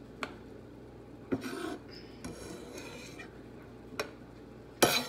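Chopped cooked spinach being scraped and scooped off a wooden cutting board into a container: short rubbing scrapes with a few sharp knocks of utensil and container, the loudest near the end.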